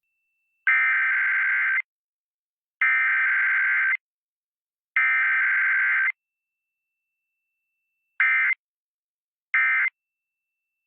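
Emergency Alert System digital data bursts: three buzzy, screeching bursts of about a second each, a second apart, carrying the SAME header code, then near the end shorter bursts of the end-of-message code. There is no attention tone between them, as in a weekly EAS test.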